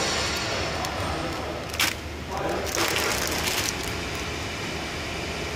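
Plastic film wrapped around a bundle of dried noodles crinkling as it is picked up and handled, with a sharp crackle about two seconds in and a longer rustle just after.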